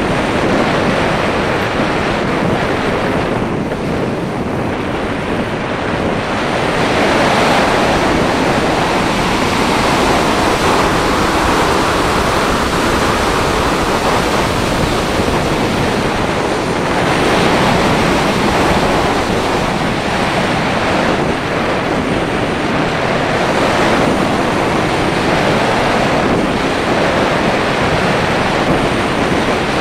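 Airflow rushing over the microphone of a HawKeye Firefly Q6 action camera riding on an unpowered radio-controlled slope glider in flight. It makes a steady wind noise with no motor, swelling and easing every few seconds.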